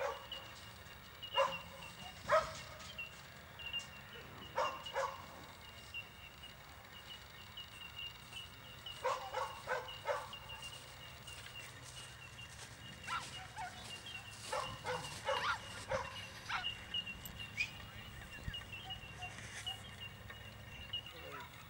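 A dog barking in short, scattered barks, some coming in quick runs of two or three.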